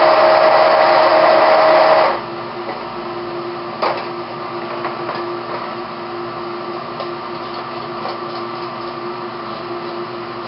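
Hand-held stick blender motor running steadily in a jug of water sample, blending it to free bacteria from the solids. It cuts off suddenly about two seconds in. A steady background hum remains, with a single light knock about four seconds in and a few faint clinks.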